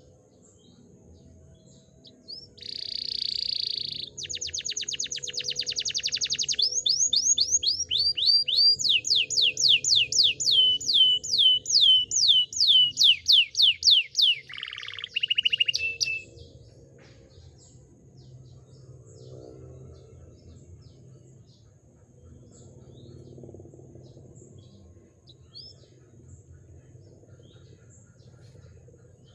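Domestic canary singing a long song phrase: a buzzy trill, then runs of rapid repeated notes and quick downward-sweeping notes, for about fourteen seconds. Only faint scattered chirps follow.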